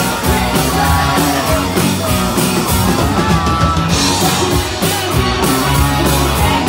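Live rock band playing loud, with electric guitars, bass and drums under a singer's voice.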